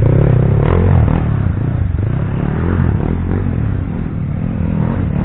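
Dirt-bike engine running hard as the bike climbs a loose dirt trail and pulls away, fading over the first few seconds. Near the end, engine noise grows louder again as another bike approaches.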